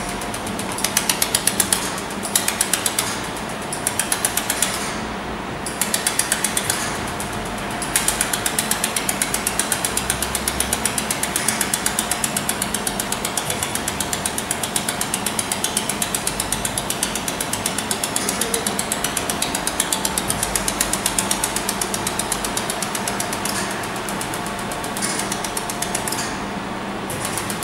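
Fiber laser welder firing in rapid, evenly spaced pulses, a fast ticking buzz. In the first eight seconds it comes in short bursts of about a second, then it runs almost without a break until near the end. A steady machine hum lies underneath.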